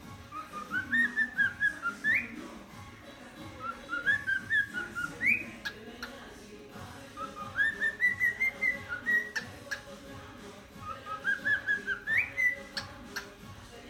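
Cockatiel whistling a learned tune in four short phrases, each a quick run of notes, some ending in a sharp upward swoop.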